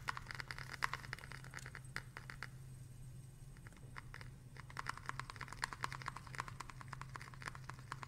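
Dry, mostly quartz sand trickling slowly from a foil tray into a graduated cylinder: faint rapid grain ticks and scratches in two runs, with a pause around three to four seconds in. A low steady hum lies underneath.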